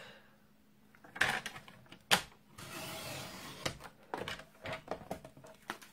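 Paper trimmer cutting cardstock: a sharp click about two seconds in, then the blade sliding along its track with a steady hiss for about a second, followed by lighter clicks and knocks of the trimmer and paper.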